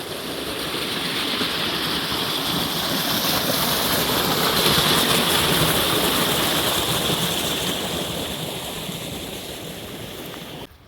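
Loud, steady rush of running water, swelling to a peak about halfway through and easing off, then cut off abruptly near the end.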